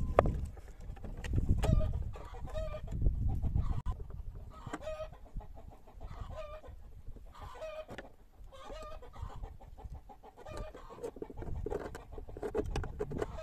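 Chickens clucking, short calls repeated over and over, over a low rumble with light knocks and clicks.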